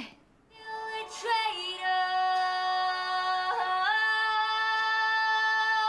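A young woman's voice singing long, steady held notes, with a short slide about a second in and a step up in pitch a little over halfway through.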